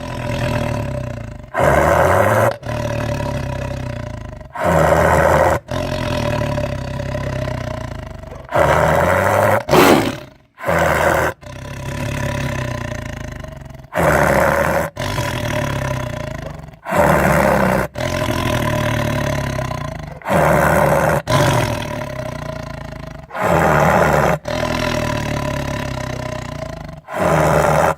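Tiger roaring and snarling over and over, a loud burst every two to three seconds with each call fading off before the next. It is aggressive vocalising while guarding a bone he has just been given.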